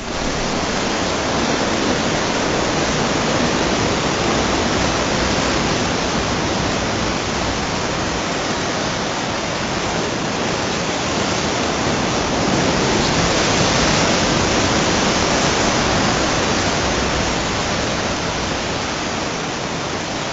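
Sea waves surging and breaking against a rocky shore: a steady rushing noise that swells a little past the middle.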